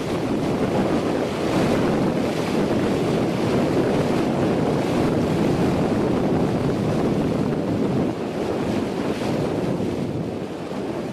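Sailboat's bow pushing through the sea under way: a steady rush and splash of water, with wind on the microphone.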